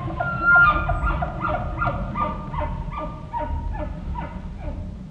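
Bull elk chuckling: a long run of short, guttural grunts, about three a second, growing fainter toward the end.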